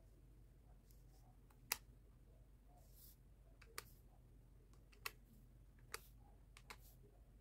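Plastic keys of a slim white desktop calculator pressed one at a time: about five sharp, separate clicks roughly a second apart, the first the loudest.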